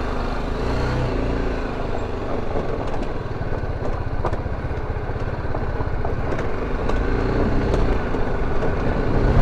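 BMW G 310 GS single-cylinder engine running at low revs as the motorcycle rolls down a rough dirt track. Tyres rumble over the dirt, with small clicks from stones under the wheels.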